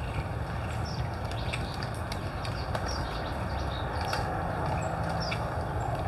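Birds chirping here and there over a steady low rumble, with faint clicks and crunches from javelinas eating scattered corn.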